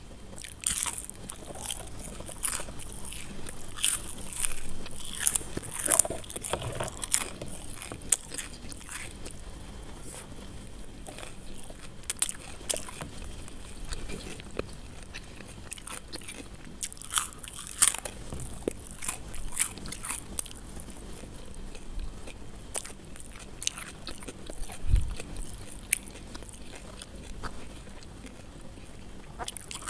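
Biting into and chewing crispy fried potato sticks: sharp crunches that come in clusters, with quieter pauses between mouthfuls.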